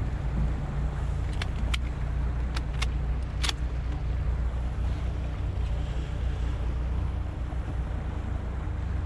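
Small open boat under way, its outboard motor running steadily with a low hum over the rush of water and wind. Several short sharp ticks come between about one and four seconds in.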